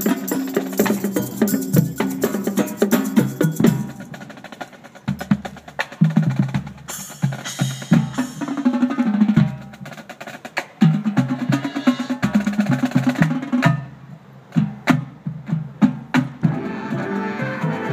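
Marching band percussion section playing a rhythmic passage of drum strokes and sharp clicks, with low pitched drum notes stepping between pitches. Sustained pitched notes come in near the end.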